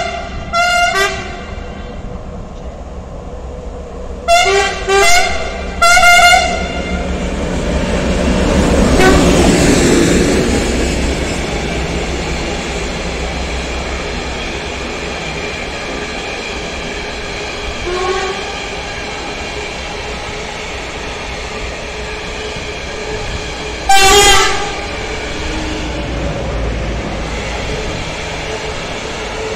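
Freight train of tank wagons rolling through, with a steady rumble of wheels on rails that swells to its loudest about ten seconds in. Locomotive horn sounding in short blasts: one at the start, three in quick succession about five seconds in, and one more about four-fifths of the way through.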